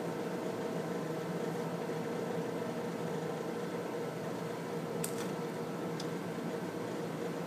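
Steady ventilation hum filling a small room, with two short clicks a second apart about five seconds in.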